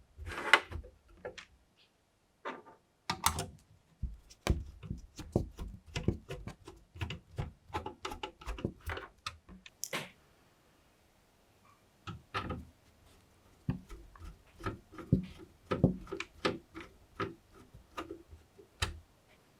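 Irregular clicks, taps and light knocks of PC components, cables and fasteners being handled and fitted during a computer build, with a brief pause about two seconds in and a quieter stretch about halfway through.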